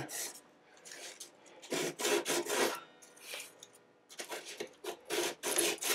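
600-grit sandpaper on a tongue depressor rubbed over the fret ends along an acoustic guitar's fingerboard edge. It goes in several bursts of quick back-and-forth strokes with short pauses between them.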